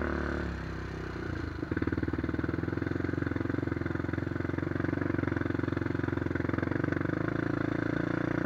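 Honda 400EX ATV's single-cylinder four-stroke engine, with a White Bros aftermarket exhaust, running as the quad rides along a dirt trail. The engine eases off about a second in, then picks up again with a steady, fast pulsing note under throttle.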